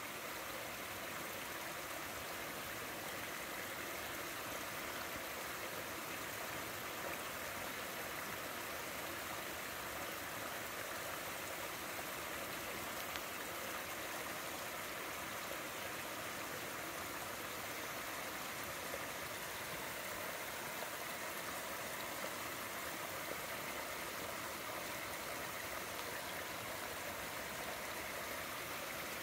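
Water pouring over a small stepped weir into a shallow stream: a steady, even rushing.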